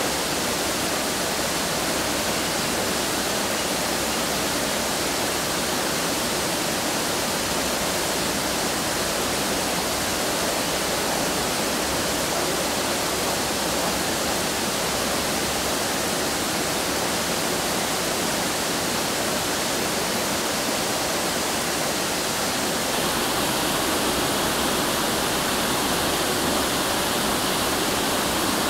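Steady rushing of falling water, an even hiss with no breaks that grows a little louder near the end.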